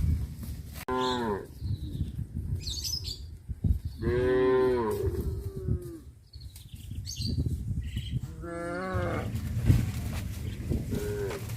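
Cows mooing: four calls, a short one about a second in, a longer one around four seconds in, another near nine seconds and a brief one near the end.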